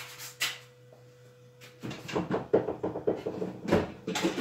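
Handling clatter of loose screws: a couple of sharp clicks, then a dense rattling and clicking of small hard pieces from about two seconds in as they are picked through.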